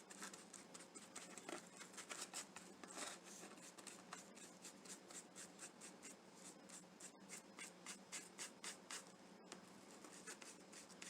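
Faint, quick brush strokes of a paintbrush spreading craft paint over a small heart, a soft scratchy swish repeated about two or three times a second.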